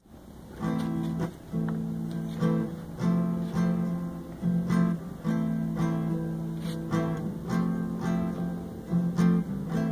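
Acoustic guitar strumming chords in a steady rhythm, fading in over the first moment.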